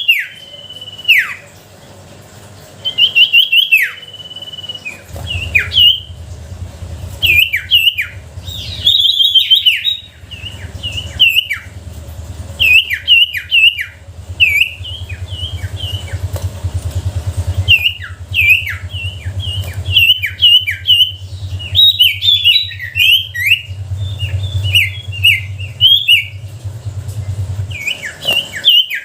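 A sirtu songbird singing loudly, used as a lure call to set other sirtu singing. It opens with two held high whistles that each drop away sharply, then goes into fast runs of sharp chirps. A steady low hum sits underneath from about five seconds in until near the end.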